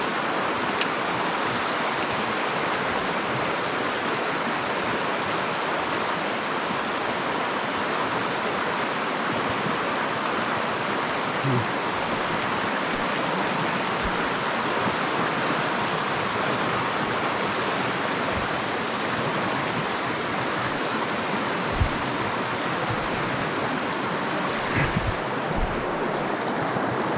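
Mountain stream water running steadily over shallow riffles, an even rushing hiss. A few brief low knocks sound partway through and near the end.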